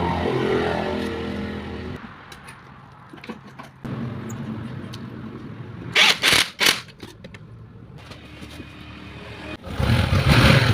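Motorcycle engine running, revved at the start and again near the end, with a few sharp clinks about midway.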